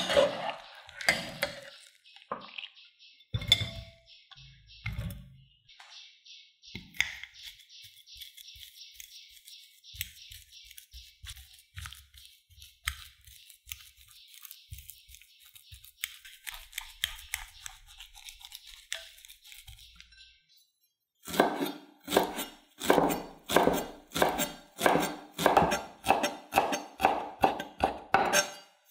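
Metal clinks of a wire skimmer in a pot of boiled potatoes, then a spoon scraping and mashing soft boiled potatoes in a ceramic bowl. In the last third comes a kitchen knife chopping fresh coriander on a wooden cutting board: about a dozen steady chops, roughly three every two seconds, the loudest sound here.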